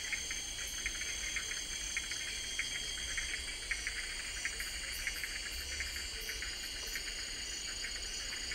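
Insect chorus of crickets or similar insects: several steady high-pitched trills overlapping, one pulsing on and off, over a rapid faint ticking.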